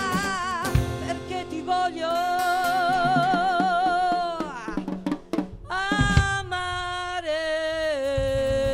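A woman singing long held notes with vibrato over a pop band with drums and guitar; the voice slides down about four seconds in, breaks off briefly, then starts a new phrase that steps down in pitch.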